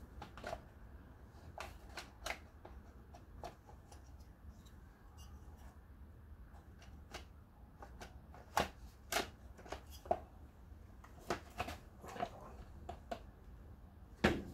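Irregular clicks, taps and knocks of plastic and metal parts being handled and worked apart on a small Homelite engine during teardown, with a louder knock near the end.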